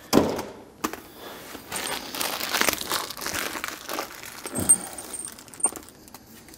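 Plastic wrapping crinkling and rustling as a new shock absorber and its hardware are unpacked, with a sharp knock right at the start and a few light clicks of small parts.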